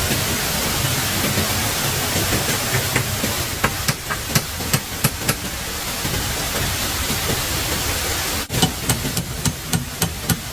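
A steady rushing noise with two runs of sharp knocks, about two a second: one a few seconds in and one near the end, the second starting just after a brief break in the sound.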